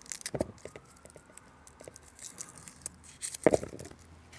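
Dry, papery shallot skins crackling and tearing as they are peeled off with a small knife, in scattered small clicks. A louder knock and rustle comes near the end as a hand goes into a plastic bowl.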